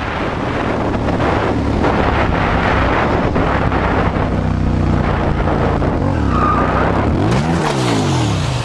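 Motorcycle engine running at speed under heavy wind rush on a helmet camera. Near the end the bike goes down: the engine pitch swings down and back up, and there is a burst of scraping and skidding on asphalt as the rider slides.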